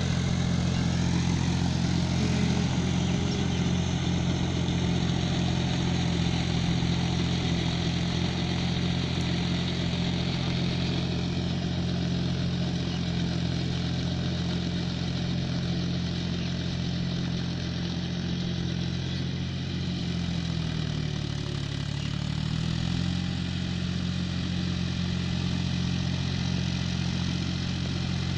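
Powertrac Euro 45 Plus tractor's diesel engine running steadily while it pulls a rotary tiller through the soil. About twenty seconds in, the engine note dips briefly and then comes back up.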